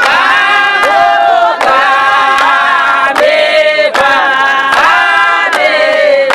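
A choir of women singing a hymn a cappella, clapping their hands together in a steady beat about every 0.8 seconds.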